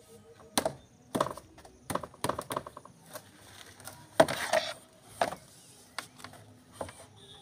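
Dark grey plastic rain gutter sections knocking and clicking as they are handled and pushed together, with about ten separate knocks. The loudest is a longer clatter about four seconds in.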